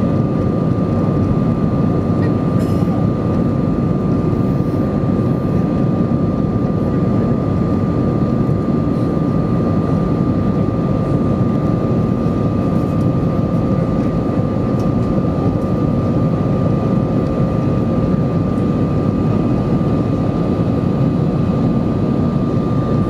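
Steady cabin noise inside an Airbus A320 during the climb after takeoff: the jet engines' low rumble and rushing air, with a thin steady whine running through it.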